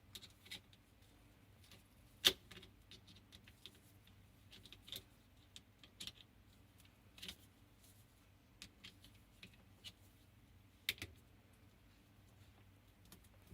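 Scattered light clicks and clacks of hand work on a dishwasher's drain hose and its clamp, with a sharper knock about two seconds in and a pair of knocks near eleven seconds.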